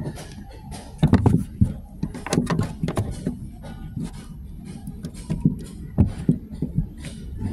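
Irregular clicks, taps and knocks of hands working plastic car interior trim and dash cam wiring, with denser clusters about a second in, around three seconds and near six seconds.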